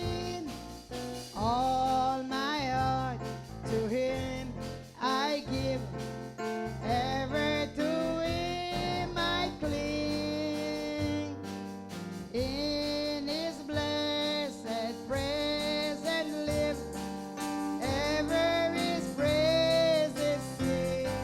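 Hymn singing with instrumental accompaniment: a sung melody over steady chords.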